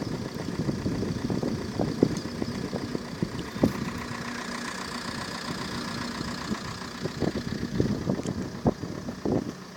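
A car engine running steadily, with many irregular low thumps and knocks over it.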